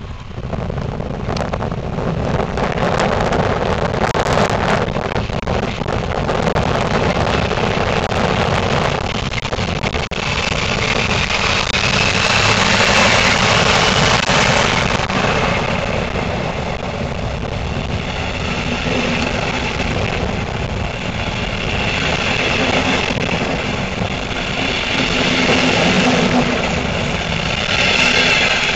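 A regional train of double-deck coaches, hauled by a DB class 112 electric locomotive, pulling out and rolling past: a loud, steady running noise of wheels on rails that swells and eases.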